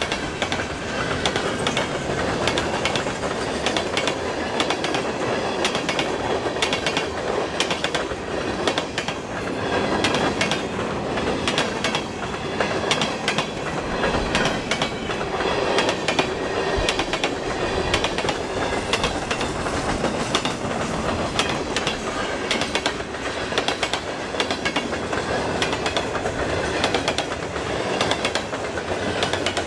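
Train cars rolling past on the rails, with a steady run of wheel clicks over the rail joints.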